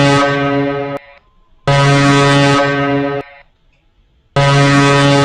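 A buzzy, horn-like Morse code tone sounding three equal elements, the three dits of the letter S. Each tone lasts about one and a half to two seconds. The first ends about a second in, the second runs from just under two seconds to just past three, and the third starts near the end.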